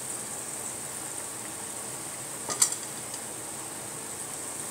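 Fish frying in oil and masala in a stainless steel pan, a steady gentle sizzle as the whole fish are laid in. A single light clink about two and a half seconds in.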